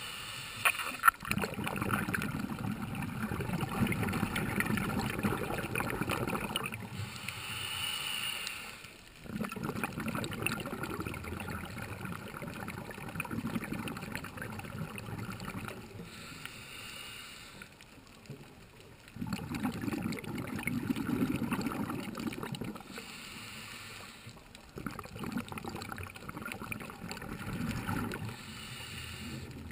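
Underwater sound of a scuba diver breathing through a regulator: long stretches of exhaled bubbles alternate with shorter, quieter hissing inhalations, about four breaths in all. A single sharp knock about a second in.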